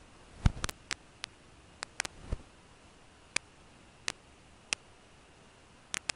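About a dozen sharp clicks and ticks at irregular intervals over a faint steady hiss. The loudest, about half a second in, has a dull thud under it.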